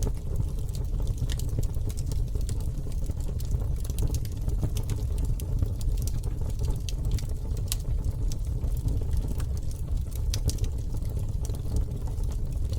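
Wood campfire burning, crackling with frequent irregular sharp pops and snaps over a steady low rumble.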